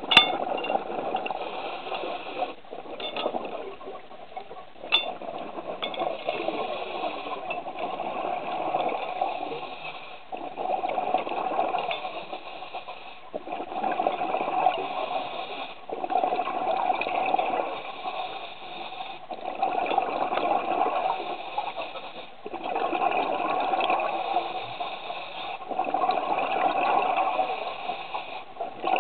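Scuba diver breathing through a regulator, heard underwater: a gushing rush of exhaled bubbles that swells and fades in a regular cycle about every three seconds, with brief lulls between.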